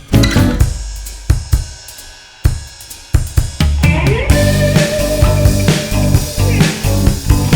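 Instrumental break in an indie-pop song: sparse drum hits over a fading tail, then the full band with bass and guitar comes back in about four seconds in.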